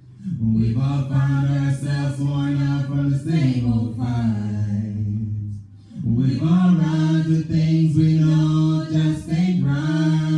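Unaccompanied singing of a worship song, voices holding long notes into microphones, in two sung phrases with a brief pause a little past the middle.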